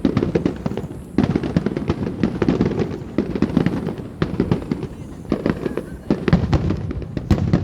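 Starmine fireworks barrage: many shells bursting in quick succession, a dense run of booms and sharp crackles with a short lull about a second in.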